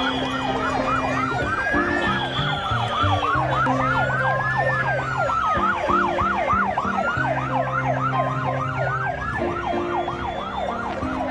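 Police motorcycle sirens yelping rapidly, about four sweeps a second, with a slower wail rising and falling among them.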